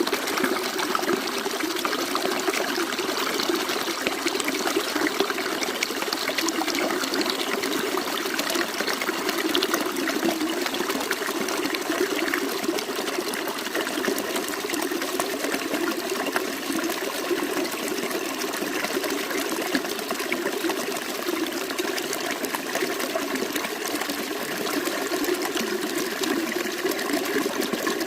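Water trickling and splashing steadily, without a break.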